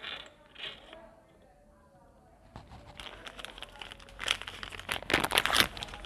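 Metal engine parts clicking and rattling as the timing sprocket and timing chain of a motorcycle engine are handled and fitted, a few light clicks at first, then a quick run of clinks that grows busier and louder toward the end.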